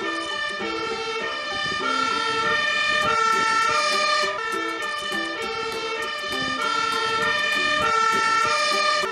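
Fire engine siren sounding its two-tone call, alternating steadily between a higher and a lower note.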